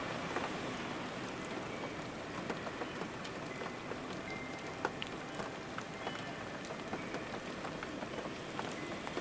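Steady rain falling, with many scattered individual drops tapping sharply close by.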